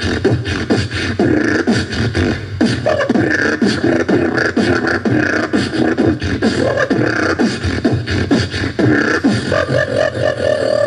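Dubstep-style beatboxing into cupped hands: a fast stream of mouth clicks and snares under repeated swooping glides that imitate wobble bass.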